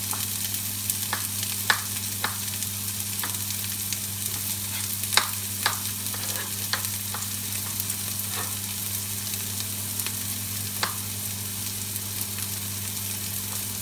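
Chopped red onion, garlic and ginger sautéing in hot oil in a nonstick frying pan: a steady sizzle broken by scattered sharp crackles, the loudest about five seconds in.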